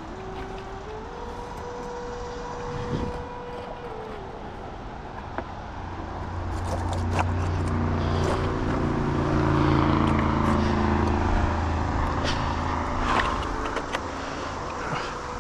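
A motor vehicle's engine running. Its tone steps up in pitch over the first few seconds, then a deeper engine hum swells and fades through the middle. There are a few sharp clicks and taps.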